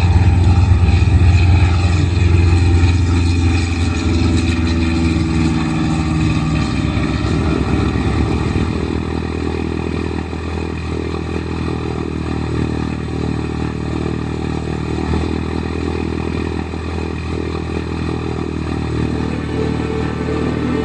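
Single-engine Cessna light aircraft at takeoff power, its piston engine and propeller drone falling in pitch as the plane climbs away past the microphone. About eight seconds in it gives way to the steady engine drone heard from inside the cockpit in flight.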